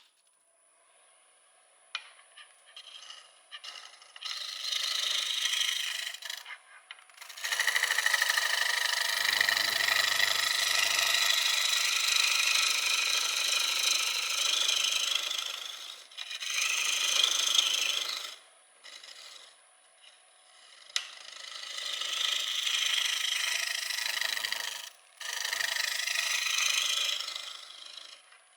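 Turning tool cutting a spinning wet maple bowl blank on a Jet 1642 lathe: a hissing shear in five passes with short pauses between, the longest pass running about eight seconds near the middle. A faint steady whine from the running lathe sits under the gaps.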